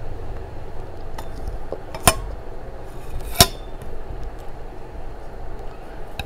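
Two sharp clinks about a second apart as a hand picking up food knocks against a stainless steel bowl, over a steady low background noise.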